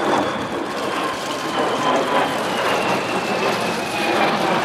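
Lockheed Martin F-35B Lightning II jet flying past, its single Pratt & Whitney F135 turbofan giving a loud, steady rush of jet noise with a high whine that slowly falls in pitch as it goes by.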